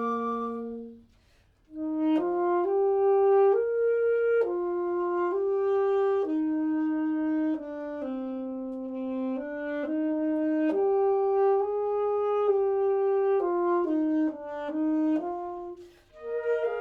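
A woodwind trio of flute, clarinet and saxophone playing a slow piece. After a short pause about a second in, a single melodic line moves step by step in a middle-low register. It breaks off briefly again near the end.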